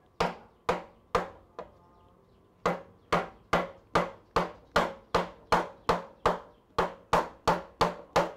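Mallet knocking on a wooden block, driving the drill press's tapered arbor shaft up into the spindle to seat the taper. It is a steady series of sharp knocks: a few, a pause of about a second, then about two a second.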